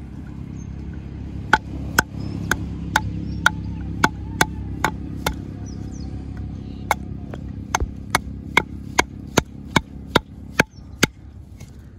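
Repeated sharp knocks on a wooden board as a freshwater snail held there is struck and its shell cracked open. There are about twenty blows, a steady run of about two a second, a pause near the middle, then a quicker run.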